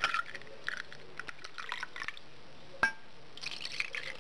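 Liquid gelatin being poured into glasses, with small trickling splashes. One sharp clink of glass rings briefly about three seconds in.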